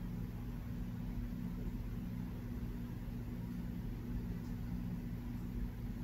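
Steady low mechanical hum, a constant drone with an even hiss above it.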